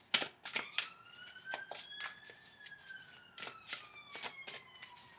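Large oracle cards being hand-shuffled: a quick run of flicking clicks, loudest just after the start. Behind it a siren wails, its pitch rising slowly and then falling away.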